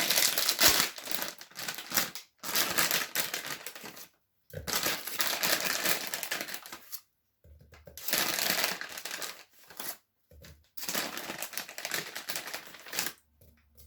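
Plastic bag of marshmallows crinkling and rustling as it is handled, in about five bursts with short pauses between.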